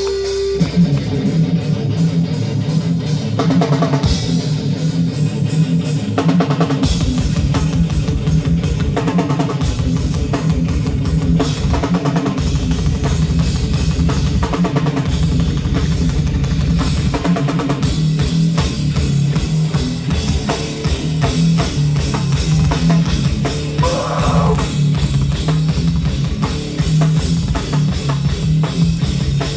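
A live rock band playing loud, heavy music on guitars and a drum kit, with a steady drum beat throughout.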